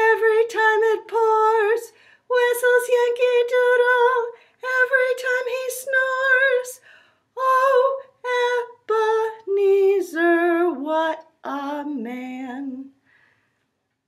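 A woman singing a children's song unaccompanied, in short phrases. The melody steps down to a low held note near the end and then stops.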